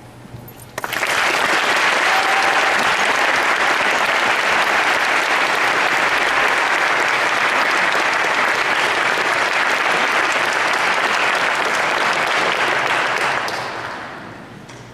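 Audience applauding, breaking out suddenly about a second in and dying away near the end.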